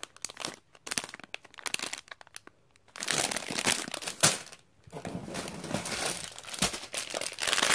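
Clear plastic bags of Lego bricks crinkling as they are handled and set down. There are scattered clicks for the first few seconds, then denser crinkling from about three seconds in.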